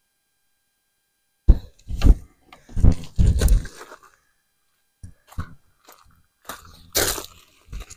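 A run of knocks, clicks and rustling from objects being handled. It starts after about a second and a half of silence, is loudest over the next two seconds, and thins to fainter clicks near the end.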